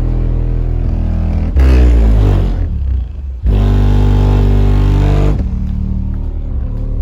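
A single 12-inch car subwoofer plays bass-heavy music at high volume. A steady low bass line gives way to a gliding bass sweep about one and a half seconds in. A louder held bass note follows from about three and a half to five and a half seconds.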